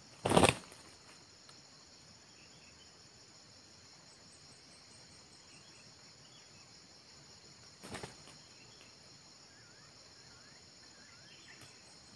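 Steady high-pitched insect drone with a few faint bird chirps, broken by a short loud burst of noise about half a second in and a softer one near 8 seconds.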